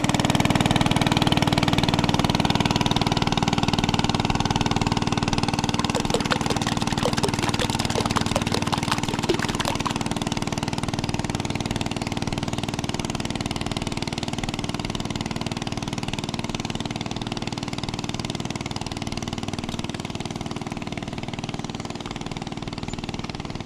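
Longtail boat's engine running steadily as the boat passes, slowly fading as it moves away.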